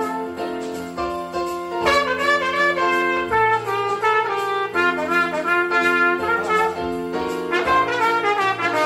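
Trumpet playing a quick jazz melody line of short, changing notes, with an electronic keyboard accompanying underneath.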